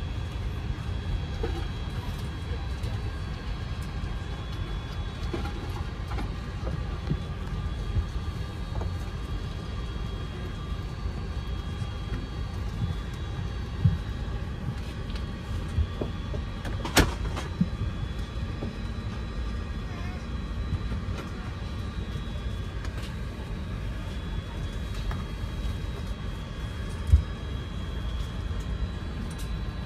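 Steady cabin ventilation noise inside an Airbus A380: a low rumble with a few faint steady whining tones above it. A few short sharp knocks, the loudest about halfway through.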